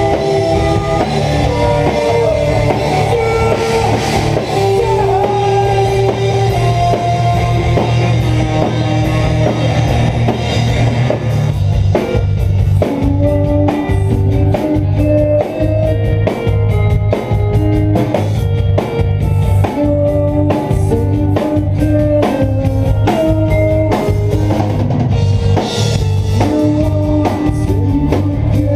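A live rock band playing loud: electric guitar, bass guitar and drum kit. About twelve seconds in, the cymbal wash drops away, leaving distinct drum hits under the guitars.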